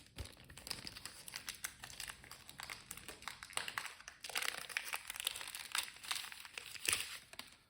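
A plastic packet crinkling and crackling irregularly as it is handled and opened, most likely the packet of hot pink Zonker strips.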